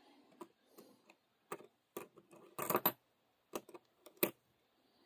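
Copper pennies clicking against one another as fingers slide and sort a handful of cents: a string of irregular light clicks, closest together and loudest near the middle.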